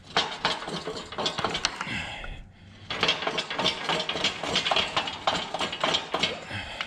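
Rapid metallic clicking of a ratchet wrench working the pinch bolt on an old Clark forklift's clutch arm, in two runs with a short break about two and a half seconds in.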